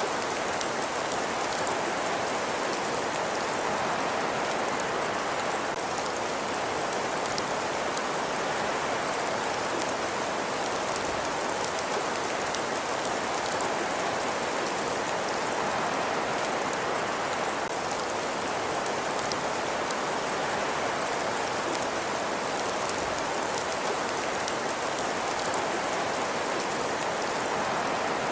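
Fireplace fire crackling: a steady, dense hiss with many fine snapping clicks, unchanging throughout.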